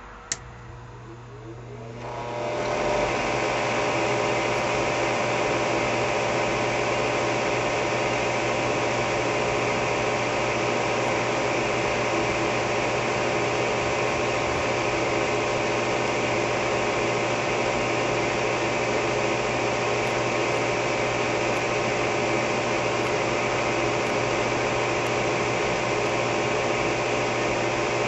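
Gas furnace's two-pole Fasco draft inducer (exhaust) motor starting after a click, spinning up over about three seconds and then running steadily with a hum: the start of the furnace's firing sequence after a new igniter was fitted.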